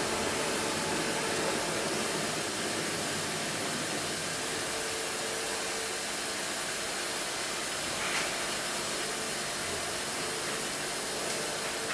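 Steady hiss of a small gas burner's blue flame, even and unchanging.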